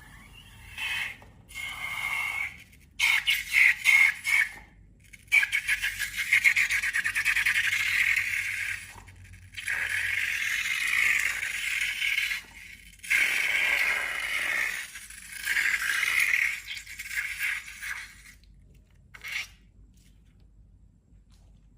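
Repeated scraping while slime is being made, in bursts of a few seconds with short pauses between them. Some bursts are quick back-and-forth strokes. The loudest bursts come about three to four seconds in.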